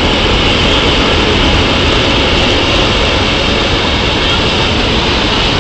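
Hot air balloon's propane burner firing in one long, loud, steady blast.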